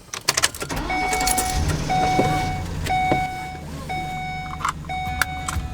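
Keys jangling, then a van's engine starting and running, while a dashboard warning chime dings about once a second, five times.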